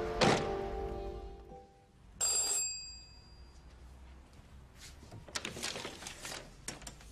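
Doorbell ringing once, a short bright ring about two seconds in, just after the last notes of a music cue die away. A few soft clicks and rustles follow near the end.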